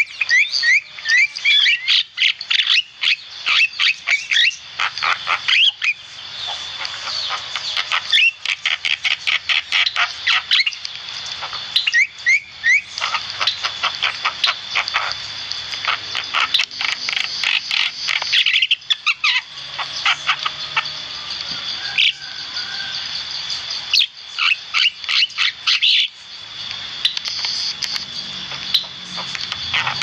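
Javan myna (jalak kebo) singing vigorously: a fast, continuous chatter of harsh clicks and short rising whistles, broken by brief pauses every few seconds.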